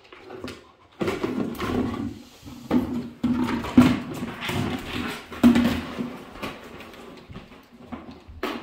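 A yellow Labrador retriever shoving and mouthing a worn plastic bucket across a hardwood floor: irregular scraping, crinkling and knocking that starts suddenly about a second in and eases off after about six seconds.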